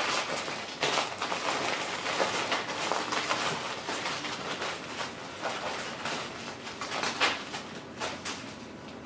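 Gift wrapping paper crinkling and tearing as small dogs nose and bite into wrapped presents: a dense, irregular crackling rustle, busier in the first half.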